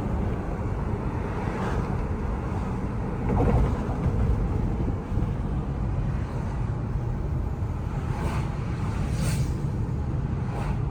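Steady low rumble of a vehicle running, with some wind on the microphone.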